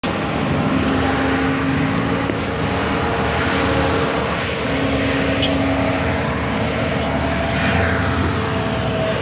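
Excavator's diesel engine running steadily, with held tones over a low rumble.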